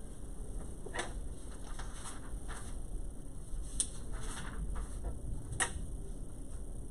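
Quiet room with a steady low hum and a few small sounds of people handling things: three sharp clicks and several soft, brief rustles.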